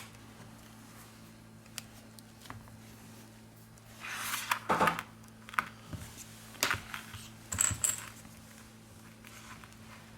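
Light clicks and short scrapes of plastic opening picks working along the edge of an iPad Pro 10.5's screen, prying its adhesive loose, heard in scattered bunches over a faint steady hum.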